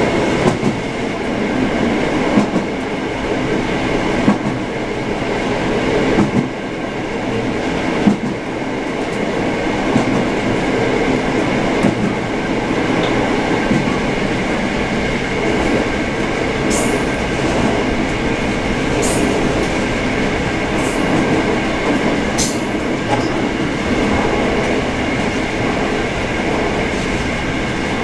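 Diesel railcar running along the line, heard from inside the cab with its windows open: a steady engine and wheel-on-rail rumble with wind blowing in. Knocks over the rail joints come about every two seconds in the first third, and a few brief high ticks come in the second half.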